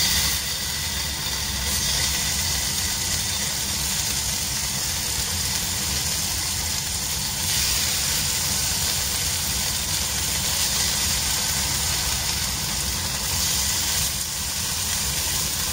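Tofu frying in a nonstick wok on low heat: a steady sizzling hiss that swells a little as more pieces go in, over a constant low hum.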